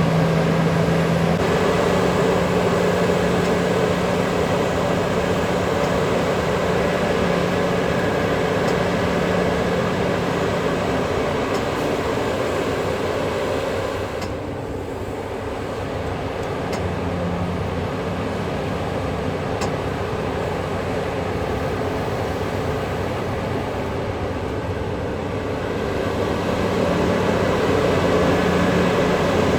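Diesel engines of heavy mining machinery running steadily under load. The engine note eases off about halfway through and builds up again near the end.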